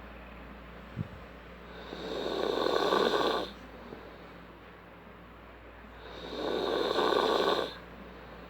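A person snoring: two long snores about four seconds apart, each building up over a second or so and then breaking off abruptly. A brief low thump about a second in.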